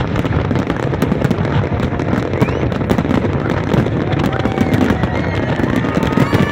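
Fireworks display: many aerial shells bursting together in a dense, continuous rattle of bangs and crackles.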